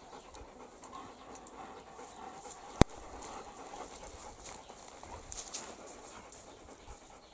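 Shepherd dogs panting, with one sharp click about three seconds in.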